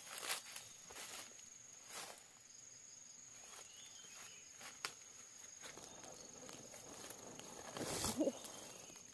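An insect's steady high-pitched buzz, with scattered crunching steps and rustles. Near the end a louder rustle comes with a short rising call.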